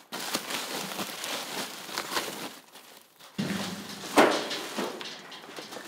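Sacks of olives being handled and unloaded from a trailer: rustling and knocking, then a low steady hum comes in and a single loud thump follows about a second later.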